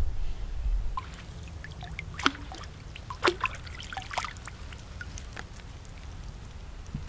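A low rumble in the first second, then creek water splashing and dripping as a bone-tipped harpoon strikes and a speared fish is pulled out. The two sharpest splashes come a little after two and three seconds, followed by scattered drips.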